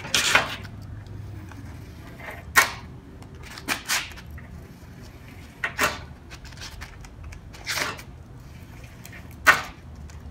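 Foil-faced heat shield insulation being folded and creased by hand against a steel workbench: a series of short, sharp crinkling and rustling strokes, a second or two apart.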